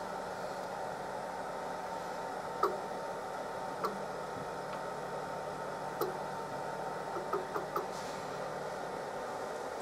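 A few light, scattered metal clicks and taps as a dial test indicator on its holder is moved into position over a machined workpiece, against a steady workshop hum.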